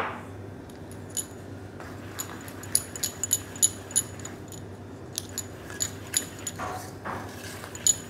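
Wire balloon whisk beating icing sugar into chocolate batter in a stainless steel bowl. Its wires clink and scrape against the metal bowl in quick, irregular strokes, over a steady low hum.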